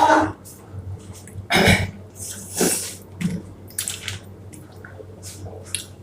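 Kurkure, a crunchy corn snack, being crunched and chewed close to the microphone in irregular noisy bursts, the loudest at the very start.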